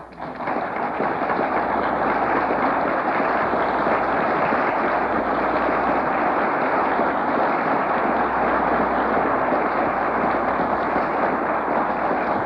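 Audience applause: many people clapping, rising within the first second and then holding steady and loud.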